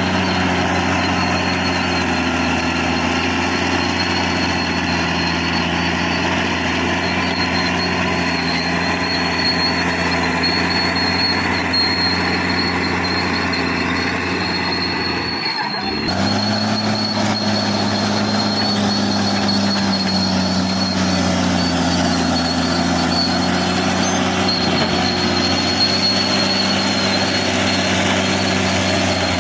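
Caterpillar D6R XL bulldozer's diesel engine running steadily under work, with a thin high whine on top. About halfway through, the sound briefly drops out, and the engine note comes back a little higher before settling.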